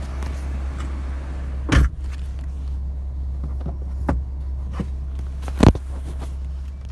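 Steady low hum heard from inside a car, with two sharp knocks, about two seconds in and about six seconds in, and a lighter knock between them.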